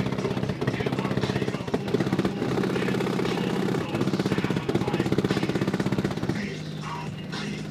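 Loud bass from a rap track played through a custom 12-inch Fi BTL subwoofer driven by a Kicker KX2500.1 amplifier, heard as a deep, fast-pulsing buzz rather than clean music; it drops back a little about six and a half seconds in.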